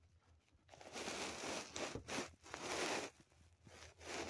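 Domestic cat purring close to the microphone, in stretches that follow its breathing. The purring starts under a second in and pauses for most of a second about three seconds in before picking up again.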